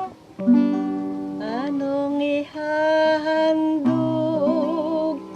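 Instrumental introduction to a hymn: an acoustic guitar plays under a held melody line whose notes slide up and waver.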